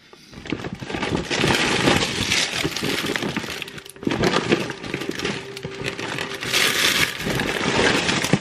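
Plastic produce wrapping crinkling and crackling as a pack of sweet peppers is pulled from a shopping bag and handled. The crinkling is dense and continuous, with a brief lull about four seconds in.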